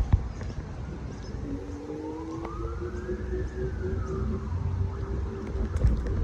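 An emergency-vehicle siren wailing, making one slow rise and fall in pitch, over a low steady rumble.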